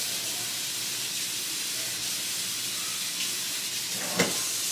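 Steady hiss of water running, likely from a kitchen tap, with a short knock near the end.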